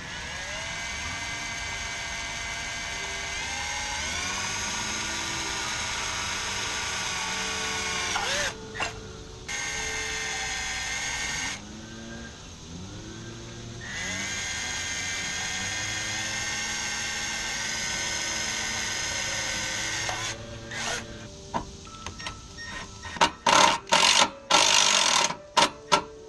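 Electric power drill running in long spells of several seconds, its motor whine rising as it spins up and then holding steady. Near the end come a handful of short, loud trigger bursts.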